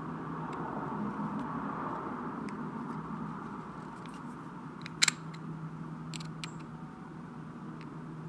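Small metal clicks as a screwdriver blade is worked against the steel head of a 1947 Snap-on GM-70M ratchet: one sharp click about five seconds in, a couple of lighter clicks a second later and a few faint ticks, over a steady low background hum.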